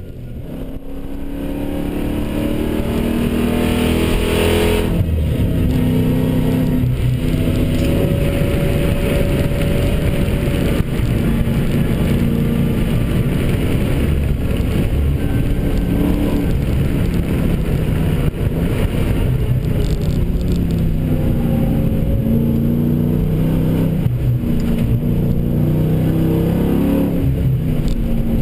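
Dodge Challenger SRT8's Vortech-supercharged V8 engine heard from inside the cabin, pulling hard on track. The pitch climbs and falls repeatedly through gear changes and lifts, with a sharp drop about five seconds in.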